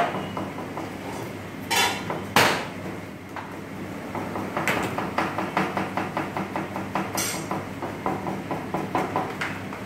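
Kitchen knife chopping on a plastic cutting board: a couple of heavier knocks about two seconds in, then a fast, even run of about five chops a second.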